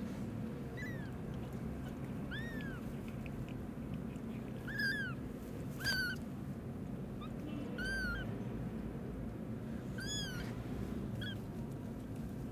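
Newborn kittens mewing: about eight short, high-pitched cries, each rising and falling, spread evenly, the loudest about five to six seconds in. A steady low hum runs underneath.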